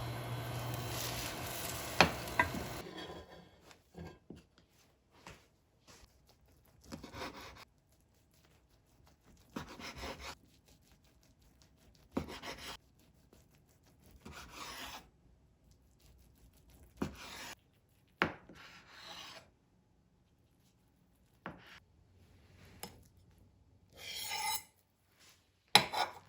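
Short scraping or rubbing strokes, one every two seconds or so. A steady hum with a couple of sharp clicks stops about three seconds in.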